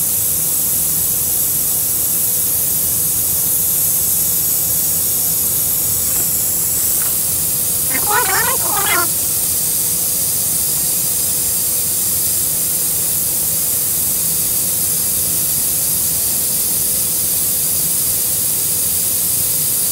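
Vacuum brake bleeder running with a loud, steady hiss, drawing old brake fluid out through the rear brake's bleeder nipple; the hiss cuts off suddenly at the end.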